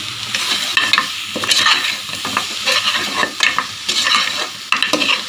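Goat leg pieces with onion-tomato masala and spice powders sizzling in oil in a pressure cooker while they are stirred. Scraping strokes come about once a second over a steady hiss.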